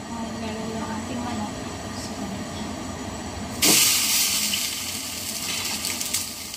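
A whole salt-marinated chicken is laid into a smoking-hot clay pot. About three and a half seconds in it sets off a sudden loud sizzle that slowly fades. Before that there is a steady hiss, typical of the gas flame under the pot.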